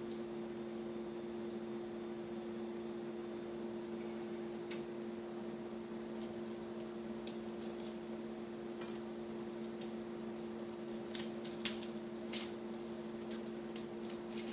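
Light clicks and clatters of small kitchen items being handled, with a few louder knocks a little past the middle, over a steady hum.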